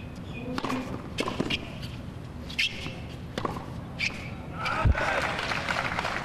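Tennis rally on a hard court: sharp racket strikes and ball bounces about every second or so. About five seconds in comes a low thud, then spectators start applauding as the point ends.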